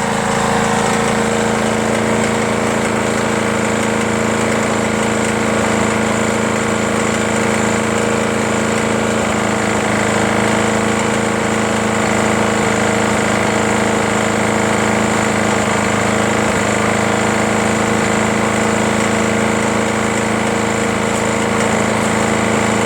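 Briggs & Stratton Quantum single-cylinder engine on a Craftsman push mower running steadily, with a clanking rattle that the owner takes as a sign of problems inside the engine.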